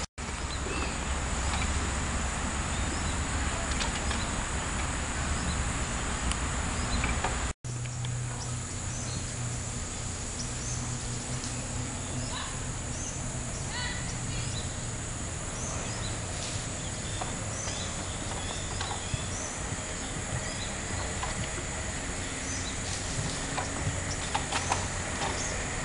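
Outdoor ambience: a steady high-pitched insect drone over a low background hum, with scattered short chirps. The sound drops out briefly about seven and a half seconds in.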